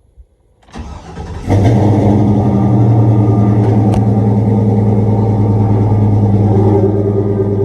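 Box Chevy's engine being cranked by the starter for about a second, catching and then idling steadily.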